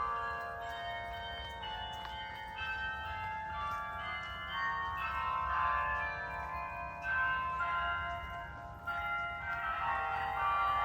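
Bok Tower's carillon playing a tune: many tower bells struck one after another, their notes overlapping and ringing on.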